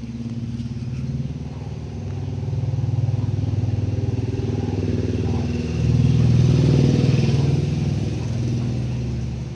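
A motor vehicle engine running, growing louder to a peak about six seconds in and easing off near the end.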